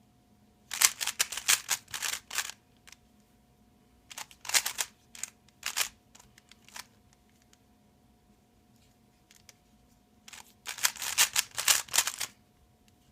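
Rubik's Cube being turned quickly by hand: three bursts of rapid plastic clicking from the layers turning, with pauses between them.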